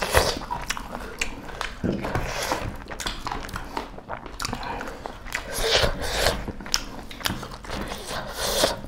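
Close-up eating sounds of two people eating beef curry and rice by hand: chewing and biting with many small mouth clicks and brief noisy bursts.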